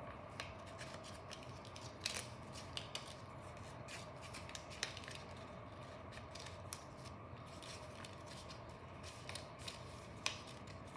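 Paper being handled and folded: scattered soft crinkles, rustles and small crackling ticks as a sheet is pressed and creased, over a faint steady hum.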